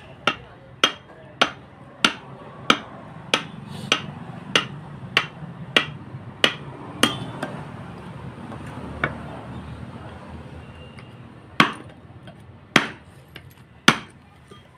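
Hammer blows on wood: about a dozen evenly spaced strikes, roughly one every 0.6 s, then a pause, then three more spaced strikes near the end.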